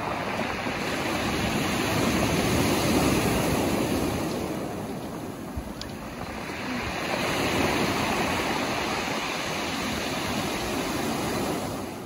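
Ocean surf breaking and washing up a pebble beach, swelling twice as successive waves come in.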